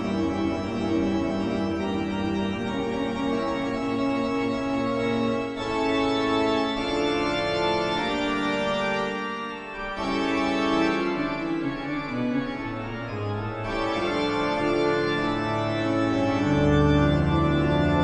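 Background music: sustained organ-like keyboard chords that change every second or two.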